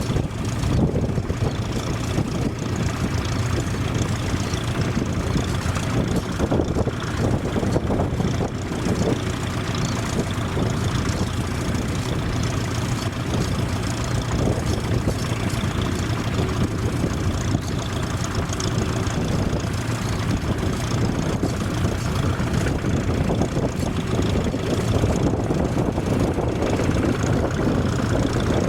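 Vintage tractor engine running steadily under load while ploughing.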